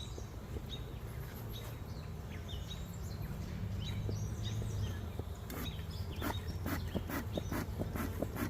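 Small birds chirping over a steady low hum of honeybees around an open hive. From about halfway there is a run of sharp clicks.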